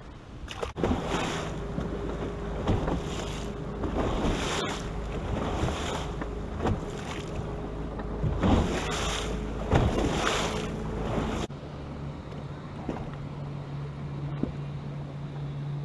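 Wind buffeting the microphone and choppy water slapping against a bass boat's hull, in surges about once a second, over a steady low hum of the electric trolling motor. About eleven seconds in the wind and splashing drop away suddenly, leaving the hum.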